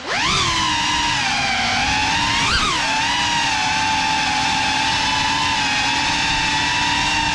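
GEPRC Cinelog 35 cinewhoop's brushless motors and ducted propellers whining in flight. The pitch dips at the start and climbs back, jumps briefly about two and a half seconds in as the throttle is blipped, then holds steady as the drone cruises.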